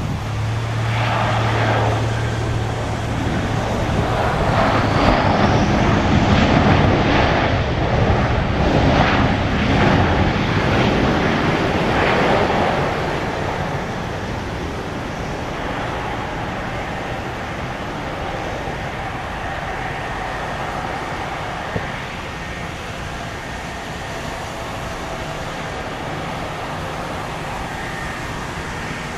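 Airbus A319-112's CFM56 jet engines during the landing rollout: a loud rush of engine noise that builds over the first dozen seconds as reverse thrust is applied, then drops off to a steadier, quieter hum as the engines come back to idle and the jet slows.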